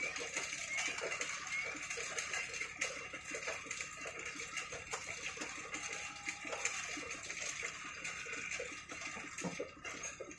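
Steady open-air background noise: a dense hiss with a few short rising chirps near the start, and many faint, irregular soft knocks and taps underneath.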